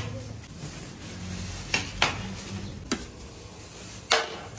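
Metal spatula and spoon scraping and clinking against a large aluminium pot of biryani as it is stirred and served out, with four sharp clinks spread through.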